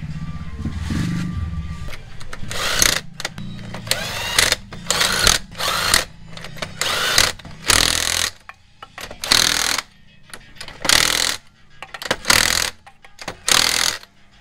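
Cordless impact wrench running a wheel's lug nuts on and tightening them, in about eleven short rattling bursts that begin about two seconds in.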